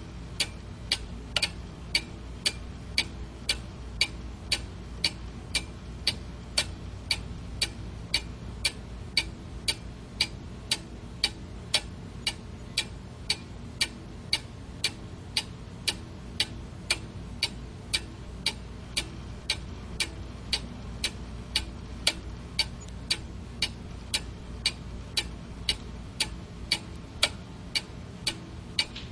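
A clock ticking steadily, about two even, sharp ticks a second, over a faint low steady hum.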